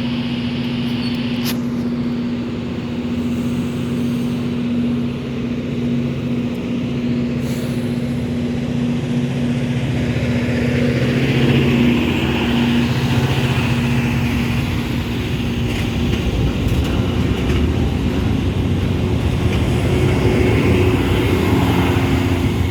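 Diesel engines of a rail grinder train running with a steady hum. About halfway through they grow louder and rougher as the train pulls away.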